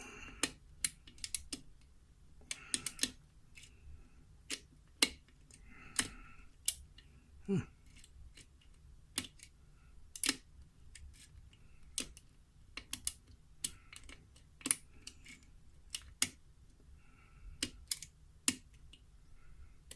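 Irregular sharp metallic clicks and short scrapes of a lock pick and tension wrench working the pins inside a pin tumbler lock.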